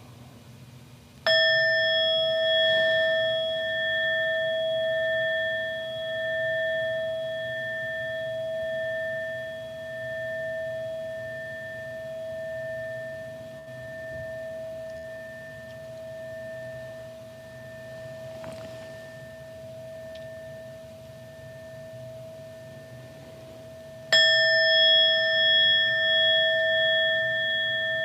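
Meditation bell struck twice, about a second in and again near the end. Each strike rings on as a long, slowly fading tone that wavers as it dies away, marking the end of the meditation sitting.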